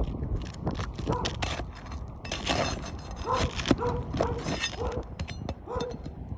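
Asphalt roof shingles being pried and torn loose, a run of sharp cracks, crackles and scrapes as the sealed shingles break free.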